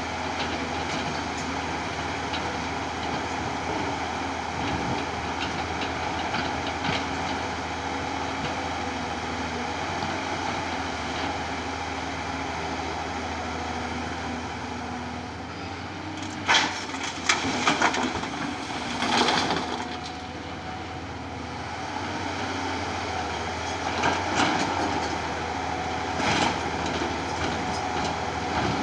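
Tata Hitachi tracked excavator's diesel engine running steadily under load while it digs and loads broken rock. About halfway through comes a burst of loud crashing clatter of rocks, with a few more crashes near the end.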